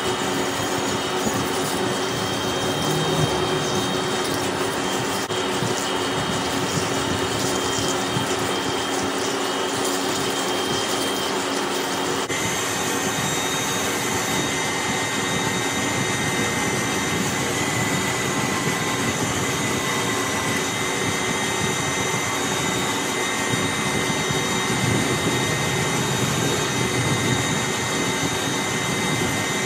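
Heavy manual lathe running steadily with its tool cutting the end of a large rotating steel spindle, coolant splashing over the work and the chips. Even machine noise with a steady hum.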